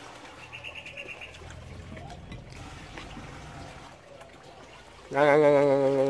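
A brief high bird trill about half a second in. About five seconds in comes a loud, long, steady closed-mouth hum ("mmm") from a person savouring a mouthful of watermelon.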